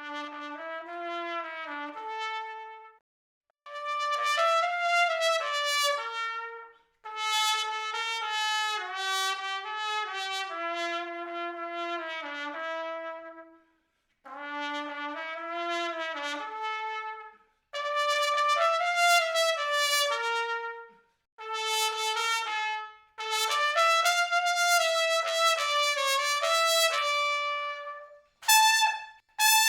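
Solo trumpet playing a slow melody with no accompaniment, in phrases of held and moving notes broken by short pauses for breath, with a few quick short notes near the end. The sound is dry, with no added reverb.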